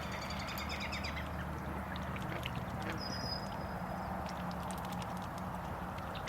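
Small birds chirping over a steady low background rumble: a rapid high trill at the start, then a thin, high, held whistle about three seconds in.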